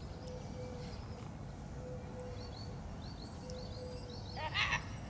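Outdoor background of a steady low rumble with small birds chirping faintly throughout, and a short, louder bird call about four and a half seconds in.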